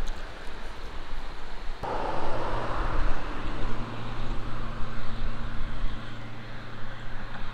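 Wind rumbling on the microphone, then from about two seconds in a steady low engine hum over a rushing noise.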